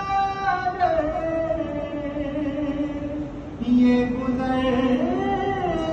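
A man singing a naat a cappella, holding long drawn-out notes that slide slowly in pitch. A new phrase starts on a low held note about two thirds of the way through and rises.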